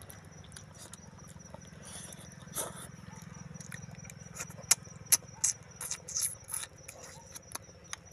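Someone eating cooked snails by hand: irregular sharp clicks and wet smacks of snail shells and chewing close to the microphone, over a steady low hum.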